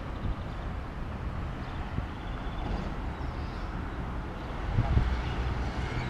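Wind buffeting the camera's microphone: a steady low rumble that swells louder about five seconds in.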